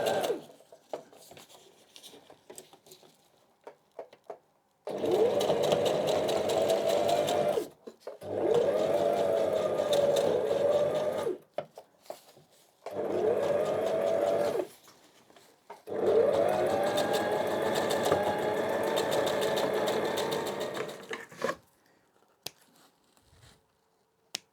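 Electric sewing machine running a straight stitch through backpack strap webbing in four separate runs, the motor whine rising as each run starts. Between runs there are faint ticks of handling.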